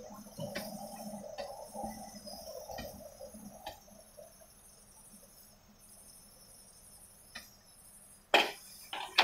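Narrow-gauge train coaches rolling slowly over a level crossing: a low rumble with wheel clunks about once a second, fading out about four seconds in. A steady high hiss runs underneath, and a sharp loud knock comes near the end.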